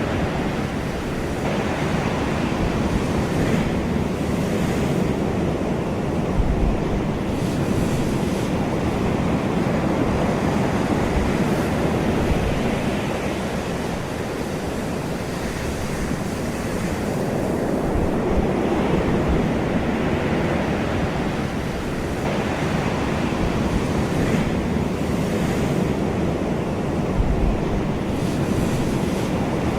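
Ocean surf: waves breaking and washing in, a continuous rushing hiss that swells and eases every few seconds.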